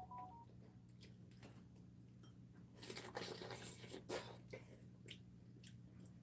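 Faint eating sounds from spicy steamed seafood: a cluster of biting and chewing crackles about three seconds in, then a few scattered clicks.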